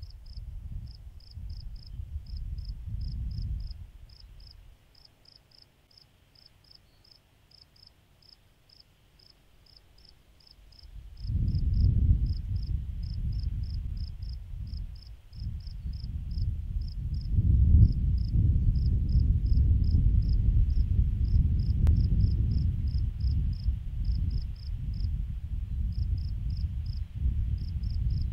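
Insects chirping in a steady rapid rhythm of short high-pitched pulses. Under the chirping is a low rumble that fades almost away for several seconds and returns louder about eleven seconds in.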